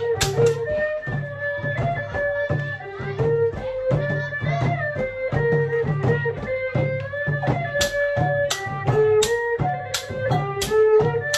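Khmer chhayam festival music: long chhayam drums beat a steady rhythm under a wavering, gliding melody line. A run of sharp crashes comes in about eight seconds in.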